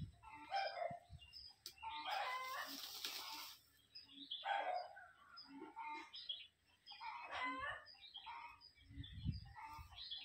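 Chickens and roosters calling on and off, with a rooster crowing about two seconds in, along with wing-flapping in the sand as the fowl dust-bathe.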